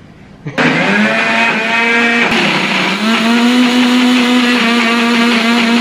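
Personal blender's motor starts about half a second in and runs with a steady whine as its jar is pressed down, blending a thick mix of cake and freezer-thickened milk. Its pitch sags briefly about two seconds in, then steadies again.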